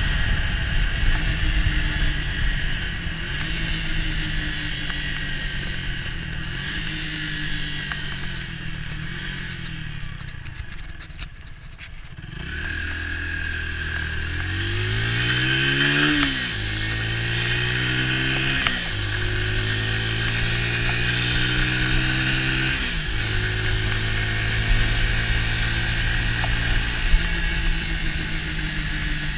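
Orcal Astor 125 motorcycle's 125 cc engine on the move: it runs steadily, fades as the throttle is eased off about ten seconds in, then rises in pitch as it accelerates, with a drop at each gear change about sixteen and nineteen seconds in, and settles to a steady cruise.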